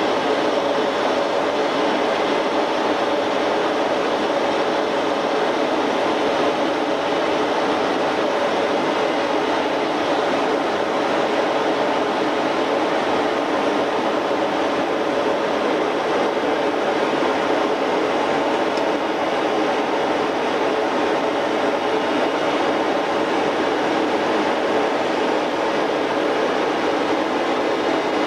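Steady, unchanging noise of a Yak-40's Ivchenko AI-25 turbofan engines running, with a faint hum of steady tones in it.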